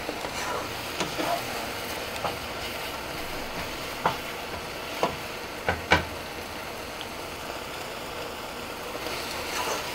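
Rohu fish roe frying in oil in a pan, a steady sizzle, while a wooden spatula stirs it, scraping and knocking against the pan several times, most between four and six seconds in.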